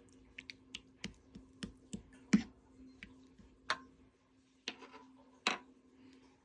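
Slime being pressed and worked by hand, making an irregular string of sharp clicks and pops, about a dozen. The loudest pop comes a little past a third of the way in and another near the end.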